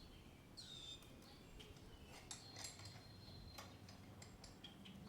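Faint metallic clicks and taps as a chain breaker tool is fitted and clamped onto a link of a motorcycle drive chain, with a few faint high chirps behind.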